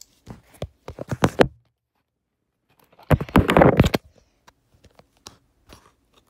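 A plastic slime tub being handled and opened: a run of sharp scraping clicks, then a louder tearing, crinkling rustle about three seconds in, then a few small clicks.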